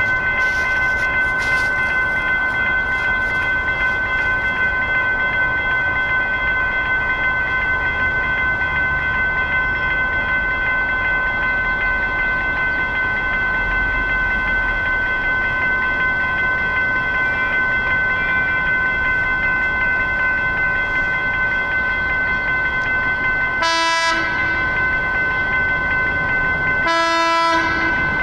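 Railroad grade-crossing warning bell ringing steadily with the crossing activated, then two short train-horn blasts near the end, the second a little longer.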